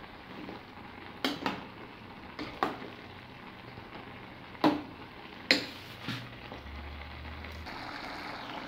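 Blue plastic ladle stirring a thick tomato-and-meat stew in a white enamel pot, knocking against the pot several times with sharp clacks. A low steady hiss runs underneath.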